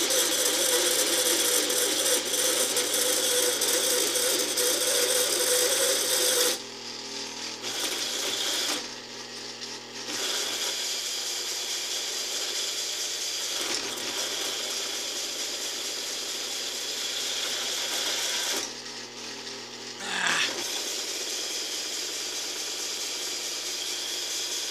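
A Taig lathe parting off a large steel bar with a spring parting-off tool: a continuous rattling, grinding cutting noise. It is loudest for about the first six seconds, drops off twice as the cut eases, and has a brief squeal about twenty seconds in.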